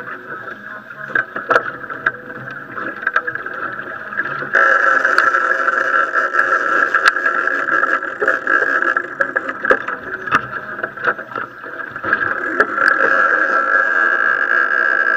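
Small boat's 70 hp outboard motor running steadily. It gets louder about four and a half seconds in, and scattered knocks and clicks sound throughout.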